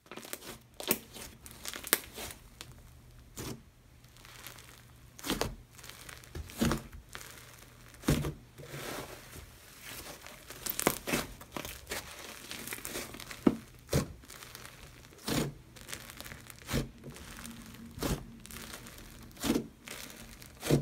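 Hands kneading, pressing and stretching a puff-textured slime, giving a steady fine crackle with a sharper pop about every second or so as air pockets in the slime burst.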